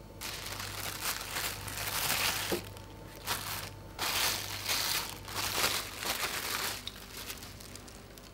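Plastic cling film crinkling as it is stretched and pressed over the rim of a cake pan, in bursts with two short breaks.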